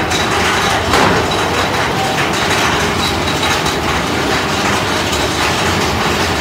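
Big Thunder Mountain Railroad mine-train coaster cars running along the track with a steady mechanical rattle, and a clack about a second in.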